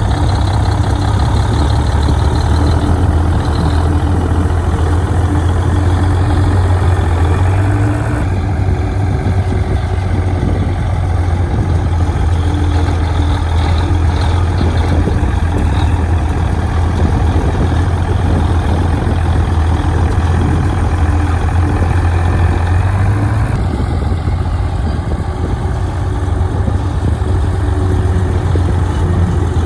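Heavy machine's diesel engine running steadily with a deep drone, most likely a bulldozer at work. The sound changes abruptly twice, about eight seconds in and again near 24 seconds.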